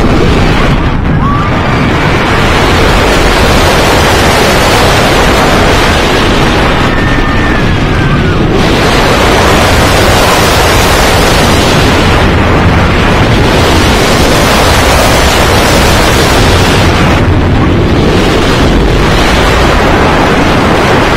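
Loud rushing wind buffeting the microphone, mixed with the rumble of the Yukon Striker steel dive coaster's train at speed on its track. The roar is continuous, with brief lulls about a second in, around eight seconds and again near the middle and late on.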